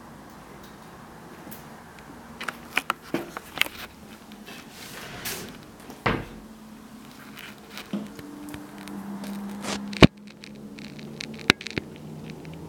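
Scattered clicks and knocks from someone walking across a parquet floor with a handheld camera, a loud knock about ten seconds in, over a faint low room hum.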